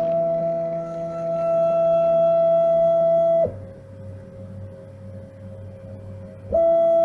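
Stepper motors of a CNC-converted Grizzly G0704 milling machine whining at a steady pitch as they drive the table through a G-code program, with the spindle off. The whine stops abruptly about three and a half seconds in, giving way to a quieter, lower tone and hum. The loud whine cuts back in near the end.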